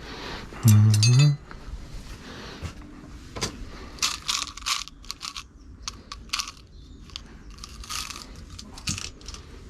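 A short, loud voiced sound with rising pitch about a second in, then a run of irregular sharp metallic clicks and scrapes from a farrier's hand tools working on a horse's hoof and shoe.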